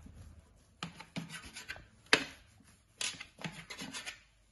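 Knife blade cutting down through a ball of dough and scraping and tapping on the metal tray beneath, a string of sharp clicks and scrapes with the loudest about two seconds in.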